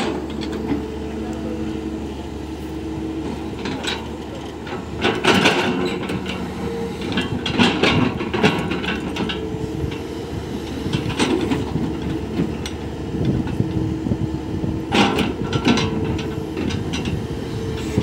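Hyundai crawler excavator's diesel engine running steadily under working load, with bursts of scraping and clatter as the bucket digs into and drops loose soil, several times, loudest about five, eight and fifteen seconds in.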